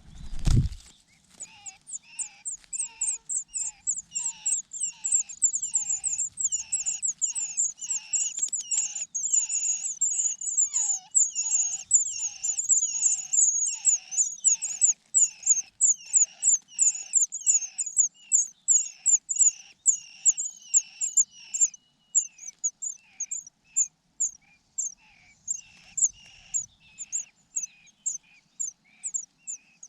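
A bird calling over and over in short, downward-slurred chirps, about two a second, growing sparser and weaker in the last third. A low thump at the very start.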